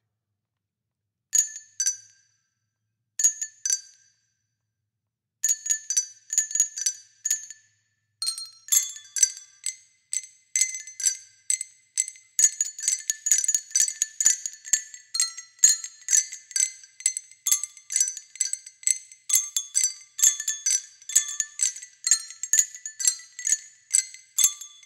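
Music of high, glassy bell-like notes. It starts with a few pairs of single strikes, then becomes a quick, steady run of tinkling notes from about eight seconds in.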